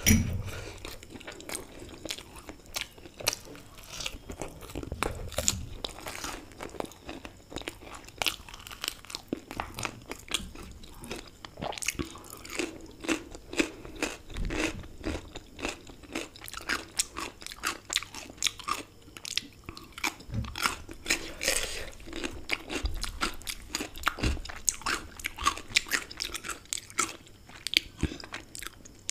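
Close-miked chewing of crunchy fried samosa pastry: a steady run of crisp crunches and crackles.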